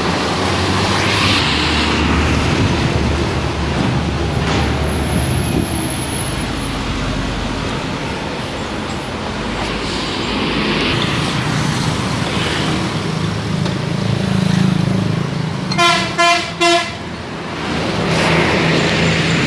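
Roadside traffic with heavy vehicles passing, the engine noise swelling as a bus draws near. About sixteen seconds in, a bus horn gives three quick toots.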